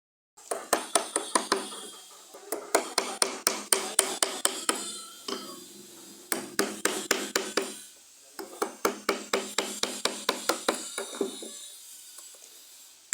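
Mallet tapping a carving chisel into wood: quick, sharp strikes at about six or seven a second, in four runs with short pauses between them.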